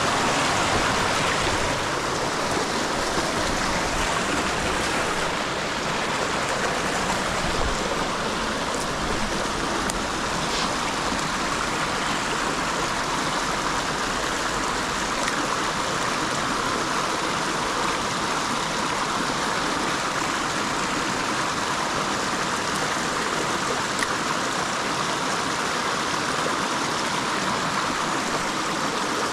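Creek water running, a steady rushing of flowing water with no change.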